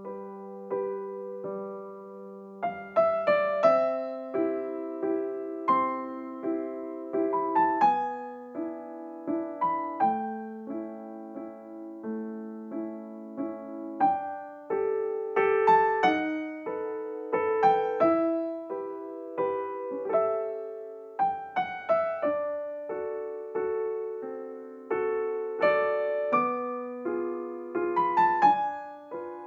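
Gentle background piano music: single notes and chords struck and left to ring and fade.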